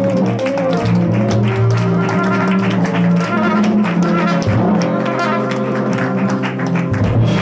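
Live jazz quintet playing: trumpet and tenor saxophone together over piano, upright bass and drums with cymbals.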